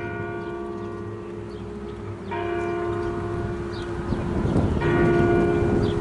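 Bell chimes striking three times, about two and a half seconds apart, each strike a chord of several tones that rings on and fades.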